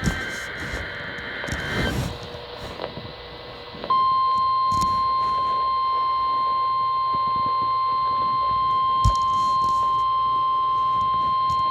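NOAA Weather Radio Required Weekly Test: the last burst of the SAME header, a harsh warbling data screech, ends about two seconds in. About four seconds in, the steady single-pitch 1050 Hz warning alarm tone begins and holds at an even level.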